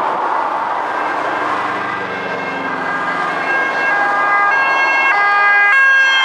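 Dutch police car's siren approaching over steady motorway traffic noise, growing louder and switching back and forth between two pitches about every half second. Near the end the pitch dips as the car passes.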